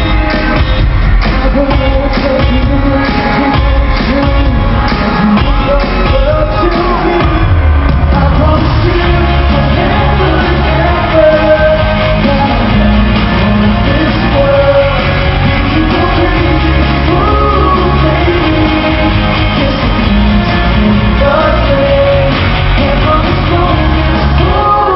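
Live pop concert: a singer's voice over the band, loud and echoing through a large arena, with shouts from the audience.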